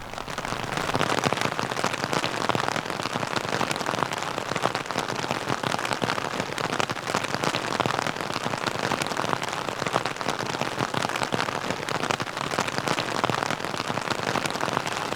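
Rain and small hail falling in a shower, a dense steady pattering of drops and pellets hitting a surface.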